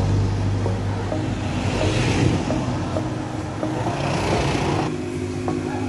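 Road traffic heard from a moving vehicle: a steady low engine hum under tyre and wind noise, swelling briefly about two seconds in as traffic passes. The sound changes abruptly near the end.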